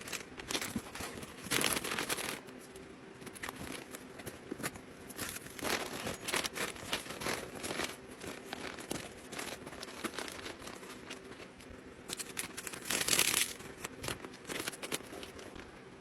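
Plastic packaging crinkling and rustling as it is handled, with louder bursts of crinkling about two seconds in and again near thirteen seconds.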